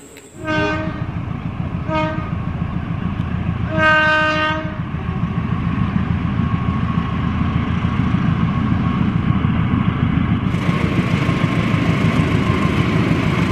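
KAI CC206 diesel-electric locomotive sounding its horn: two short blasts, then a longer one. After that comes the steady rumble of the locomotive and its container freight train passing.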